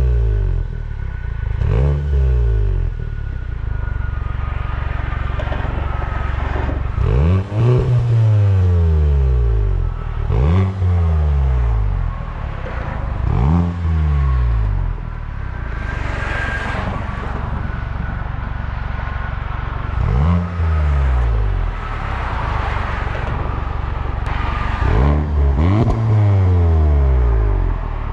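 Volkswagen Mk7 GTI's 2.0-litre turbocharged four-cylinder, fitted with a Clubsport muffler, idling and being free-revved about six times. Each blip rises quickly and falls back to idle, with a few seconds of idle between them.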